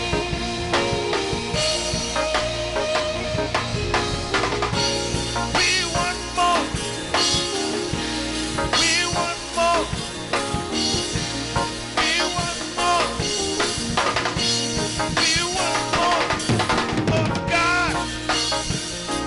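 Worship music with a drum kit beating steadily over held keyboard and bass notes, and a melody line above that bends up and down in pitch.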